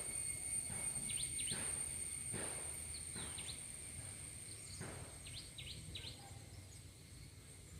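Outdoor nature ambience: a steady, high-pitched drone of insects such as crickets, with short chirps in twos and threes every couple of seconds, over a low background rumble.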